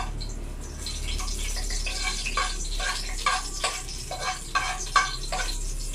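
Food sizzling in hot oil as ingredients for a sauté are scraped off a plate into the pan, the sizzle starting about a second in. A run of short scraping strokes, about three a second, comes through the middle and latter part.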